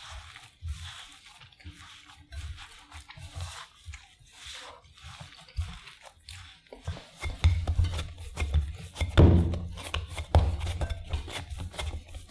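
Hand squeezing and rubbing sweet potato mash and tapioca starch in a ceramic bowl: fine crunching and rustling of the starchy crumbs. About seven seconds in it turns to louder thumps and squishes as the dough is pressed and kneaded against the bowl.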